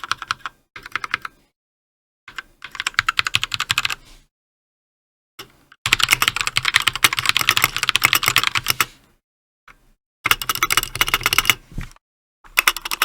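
Fast typing on a budget 60% mechanical keyboard with linear Outemu red switches, in bursts of rapid keystrokes with short silent pauses between them. The longest and loudest run lasts about three seconds in the middle.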